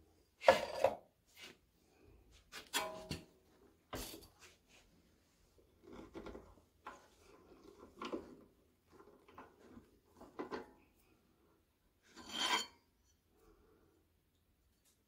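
Aluminum plate scraped, rubbed and knocked against the steel vise and table of a 4x6 horizontal bandsaw as it is handled and fitted, with the saw not running. The sounds come in irregular short bursts, with a couple of sharp clicks and a louder scrape near the end.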